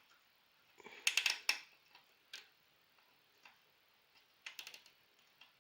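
A small plastic zip tie being pulled tight around a cable: short runs of quick ratcheting clicks about a second in and again near the end, with a few single clicks between.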